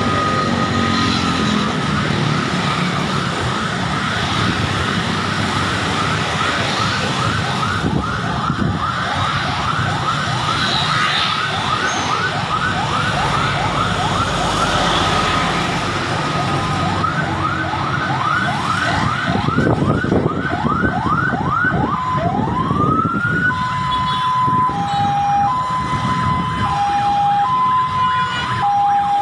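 Emergency vehicle siren in slow traffic: a fast yelp of about three sweeps a second, broken by stretches of a steady tone, then one slow upward wail and a switch to a two-tone hi-lo alternation near the end. Motorcycle and car engines run steadily underneath.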